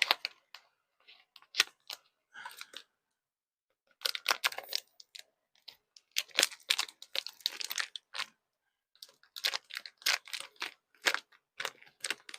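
Plastic wrapping crinkling and tearing as a dull 3D-printed plastic knife saws and scrapes at it, in several bursts of crackling with short pauses between; it tears the plastic open without cutting it cleanly.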